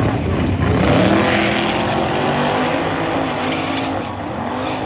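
Two drag cars launching side by side from the starting line and accelerating hard down the strip at full throttle, engine pitch climbing. Loudest about a second in, then fading a little as they pull away.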